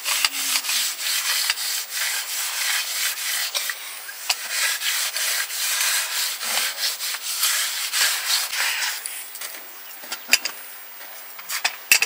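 Rapid, rough scraping strokes that stop about three quarters of the way through, followed by a couple of sharp knocks.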